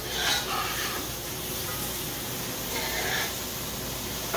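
Chicken feet, dal and spices sizzling in a hot karahi as they are stirred with a spoon, the stirring showing as a couple of brief scrapes.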